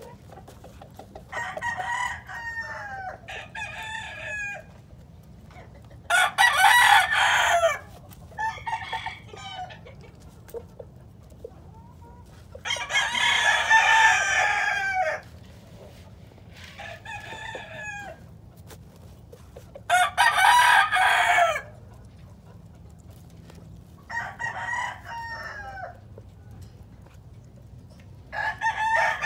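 Gamecock roosters crowing in turn, about ten crows a few seconds apart, some loud and near, others quieter and farther off.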